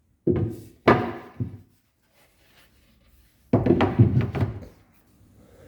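Two clusters of knocking thunks, each a few quick hits that ring out briefly, about three seconds apart.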